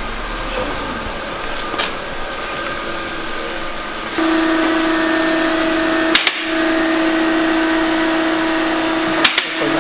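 Light car's engine running with a steady whine that comes in suddenly about four seconds in and holds, broken by two short clicks. The mechanic traces this whine to the automatic transmission, its oil filter clogged with sludge.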